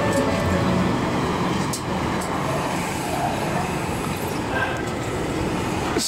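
Steady city background noise, a rumble of distant traffic, with faint music dying away in the first moment.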